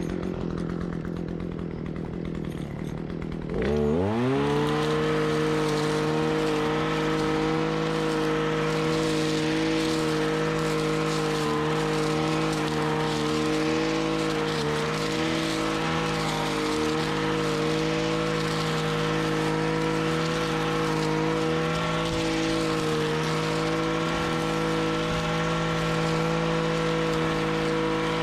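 Gas brush trimmer engine running low for a few seconds, then throttled up sharply about four seconds in to a steady high-speed whine. It is held at full speed while the trimmer cuts through tall grass and weeds.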